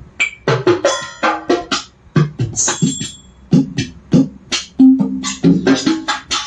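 Roland SPD-20 Pro electronic percussion pad played by hand: a quick, uneven run of drum-pad hits, some with a short pitched ring, pausing briefly about two seconds in.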